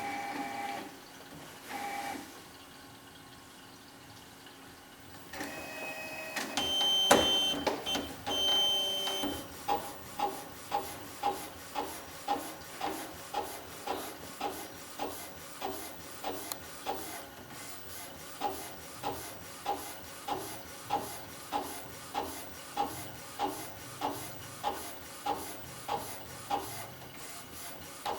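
artisJet U2000 flatbed inkjet printer printing a phone case. A few brief tones near the start, then a motor whine and clatter as it starts up about six seconds in. The print-head carriage then sweeps back and forth with an evenly repeating knock, about one and a half times a second.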